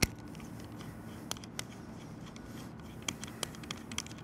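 Light clicks and ticks of plastic and metal being handled as a high-pressure hose's M22 threaded fitting is screwed onto a pressure washer spray gun, irregular and scattered, with one sharper click at the start.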